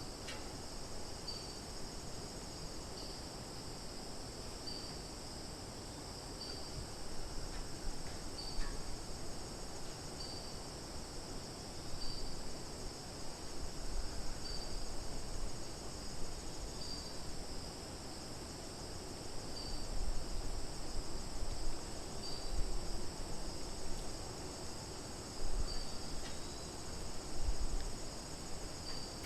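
Summer forest insect chorus of crickets and cicadas trilling steadily in a high pitch, with one short call repeating about every two seconds. A low rumble swells now and then underneath.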